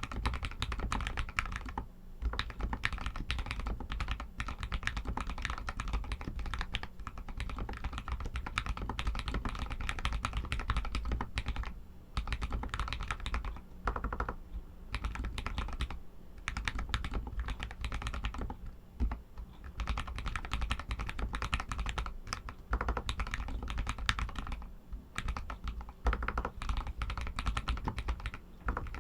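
Royal Kludge RK61 mechanical keyboard with Outemu Red linear switches being typed on in fast, continuous runs of keystrokes, broken by a few short pauses.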